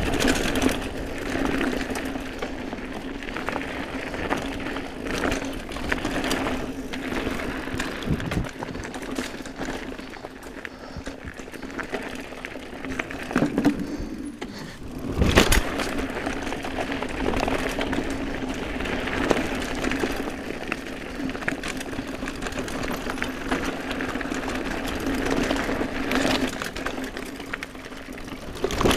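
Mountain bike rolling fast down a dirt singletrack: tyre noise on the ground, the rattle of the bike and a steady buzz. There is one hard jolt about fifteen seconds in.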